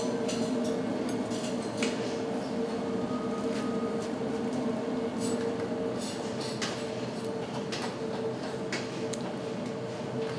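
Busy ramen kitchen: a steady mechanical hum from the kitchen equipment, with scattered light clicks and clinks of utensils and dishes.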